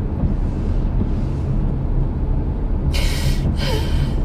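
Steady low rumble of a car idling, heard inside the cabin. About three seconds in come two short, shaky crying breaths.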